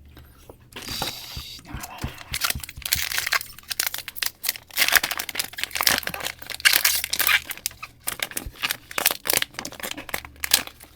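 Foil Pokémon TCG booster pack wrapper being torn open roughly and crinkled: a dense run of crackles and rips, loudest in the middle.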